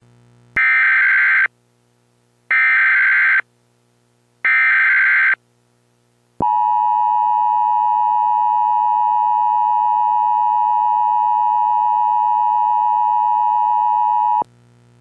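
Emergency Alert System broadcast header: three bursts of SAME data tones, each about a second long and spaced about a second apart, then the two-tone EAS attention signal (853 and 960 Hz together) held steady for about eight seconds before cutting off abruptly.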